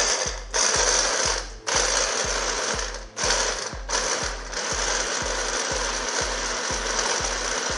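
Stick blender's chopper attachment running, chopping herbs, nuts and yogurt into a chutney. For the first few seconds it is pulsed in short bursts with brief stops, then it runs steadily.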